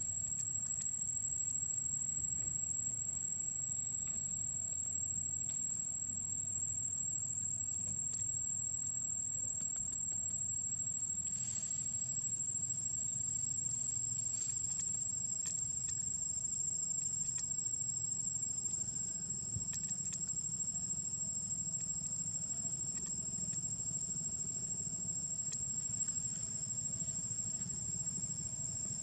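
Steady outdoor ambience: a constant, high-pitched insect drone over a low rumble, with a few faint clicks.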